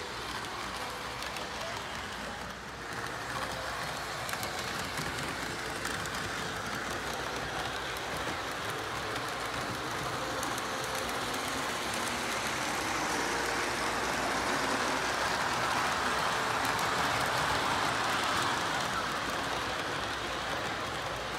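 O-gauge Thomas the Tank Engine model train running around the layout, a steady rolling rattle of wheels on track that grows louder as it nears and is loudest past the middle.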